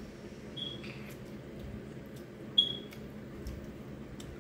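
Two short, high squeaky sucking sounds, a couple of seconds apart, as meat is sucked from a crab leg shell; the second is the louder. A few faint clicks and a steady low hum lie underneath.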